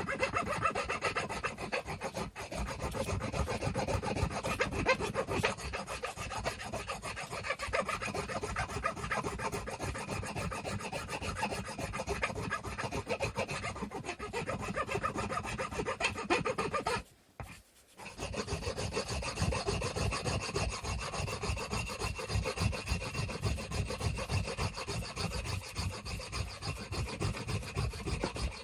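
Wood being hand-sanded, with rapid back-and-forth rasping strokes. The strokes stop for about a second roughly two thirds of the way through, then carry on.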